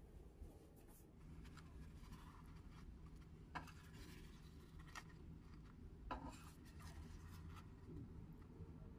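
Faint soft taps and rubbing of hands handling burger buns as top buns are set onto assembled burgers, with a few light taps in the middle. A low steady room hum lies underneath.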